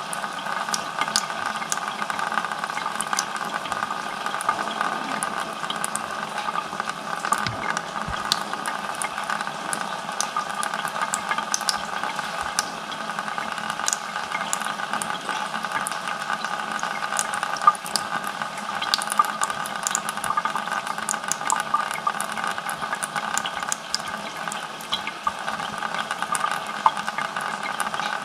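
Thin stream of water running from a mixer tap into the sink basin, heard close from inside the sink. Scattered small splashes and drips break in as a cat's paw dabs into the stream.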